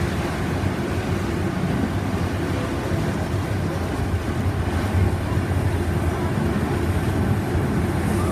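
Steady rumble and rattle of a heritage passenger train hauled by a steam locomotive, running along the line as heard from inside a carriage by the window.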